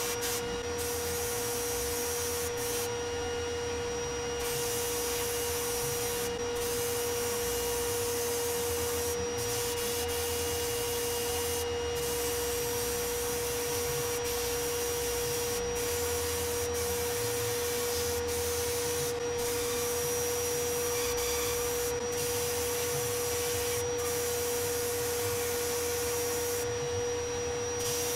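Sandblasting gun in a blast cabinet stripping a metal part: a steady hiss of air and abrasive that breaks off for a moment every few seconds as the trigger is let go. A steady high whine runs underneath throughout.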